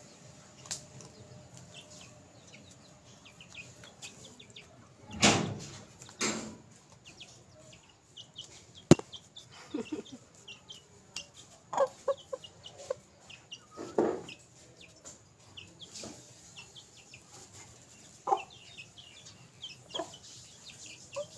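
Aseel rooster clucking in short, scattered calls while it feeds. There are faint high chirps throughout, and a single sharp click about nine seconds in.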